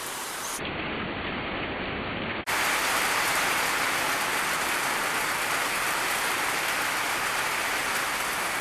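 Heavy rain pouring down steadily, a dense even hiss that grows louder about two and a half seconds in.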